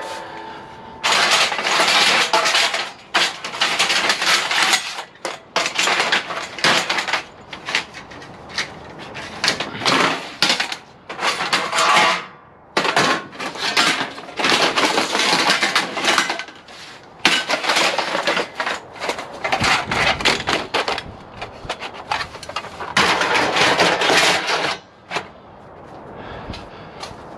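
Lengths of extruded 6063 aluminum clattering and scraping against each other as they are loaded into a vehicle, in repeated irregular bursts about every second or two.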